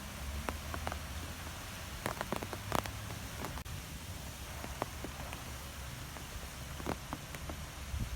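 Wind blowing through trees: a steady rush of moving air with scattered light ticks and crackles from the leaves, over a low rumble of wind on the microphone.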